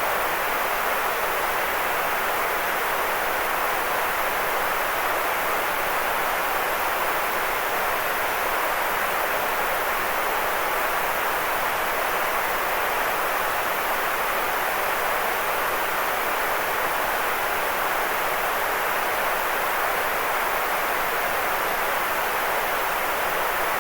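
Steady white noise: an even, unchanging mid-pitched hiss that holds the same level throughout.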